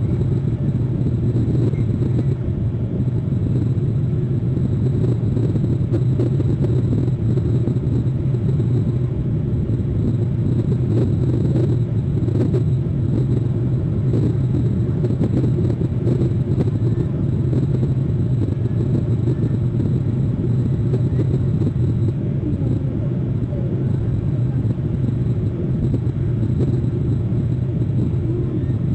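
Steady low rumble with a hiss underneath, unchanging throughout, picked up by an outdoor nest-cam microphone.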